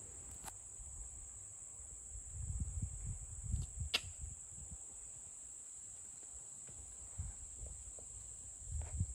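Steady high-pitched drone of crickets, with a low rumbling noise for about a second from just past two seconds in and again briefly near the end, and a couple of faint clicks.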